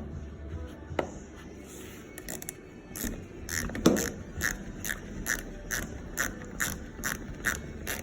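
A ratchet wrench with a 7mm socket clicks in short, even back-strokes, about two clicks a second, from about three seconds in, as it backs out the bolts holding the fuel filler neck. A louder knock comes just as the clicking starts, and a few scattered clicks come before it.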